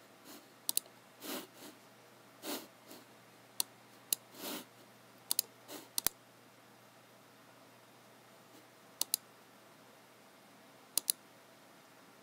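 Computer mouse buttons clicking, several times as quick press-and-release pairs, with soft brushing sounds between them over the first half. After that come only two more click pairs, near the middle and near the end.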